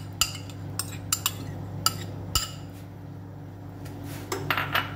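Sharp clinks and taps of a yogurt container against a glass mixing bowl as the yogurt is tipped and scraped in, with a quicker cluster of clinks near the end.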